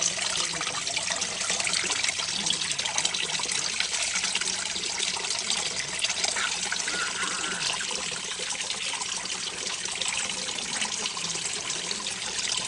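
Water fountain running, its water trickling and splashing steadily.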